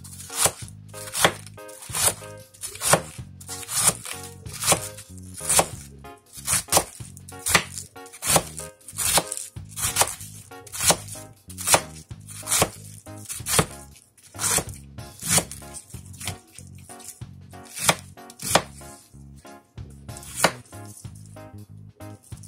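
Kitchen knife shredding half a head of cabbage on a wooden cutting board, one sharp cut after another at about two cuts a second, in a steady rhythm.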